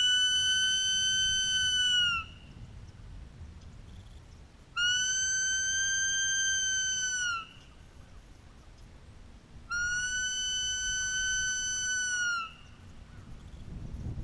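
Sika deer stag's rutting call, the bugle: three long, steady whistles, each about two and a half seconds, dipping slightly in pitch as it ends, with a pause of a couple of seconds between them.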